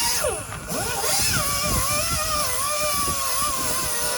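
A motor vehicle engine running, its pitch swooping down and back up in the first second, then holding fairly steady with a slight waver.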